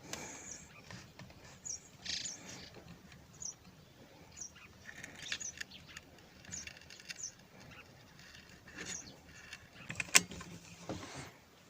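Birds chirping and calling on and off in short bursts. About ten seconds in there is one sharp, loud snap.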